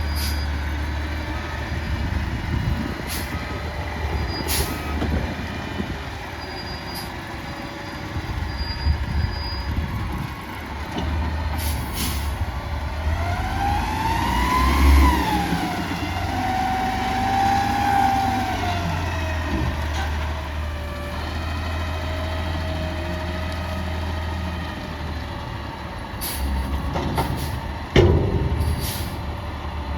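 Peterbilt 320 front-loader garbage truck running, its engine revving up and back down about halfway through with a whine that rises then falls, typical of the hydraulics working the loader arms. Short air-brake hisses come and go, and a sharp bang sounds near the end.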